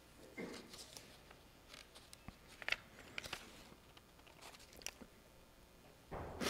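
Faint scattered clicks and brief rustles, with a louder rustle near the end.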